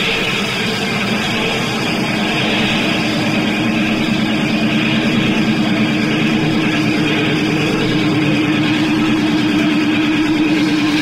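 Heavily distorted electric guitar in sustained feedback and noise from a live rock band, with a held, wavering tone that grows stronger a few seconds in.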